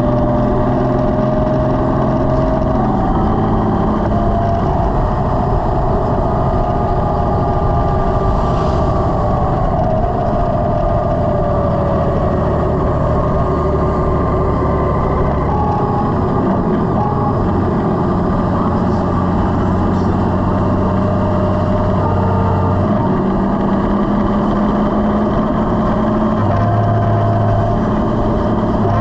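Honda Gold Wing DCT's flat-six engine running at road speed, under steady wind and road noise. The engine note jumps to a new pitch several times.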